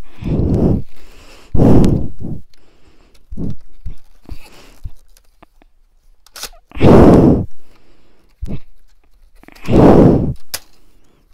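Plastic Nerf blaster being handled and knocked while a jammed part is worked at: a few loud dull thumps and scuffs, with a couple of sharp clicks.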